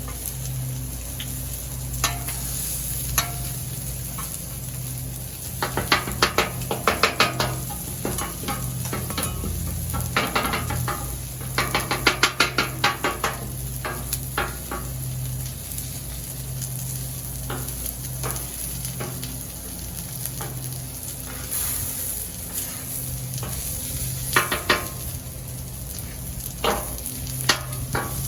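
Food sizzling on a Blackstone steel flat-top griddle, with bursts of rapid metal spatula clicks against the griddle top about six seconds in and again around twelve seconds, and a few single clicks elsewhere. A steady low hum runs underneath.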